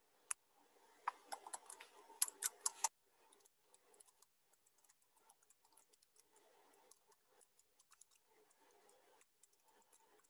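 Faint clicking of typing on a computer keyboard, a quicker, louder run of keystrokes in the first three seconds, then lighter scattered clicks.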